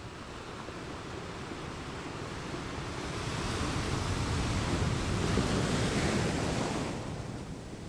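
Sea waves washing onto the beach with wind, one surge swelling over a few seconds and falling away near the end.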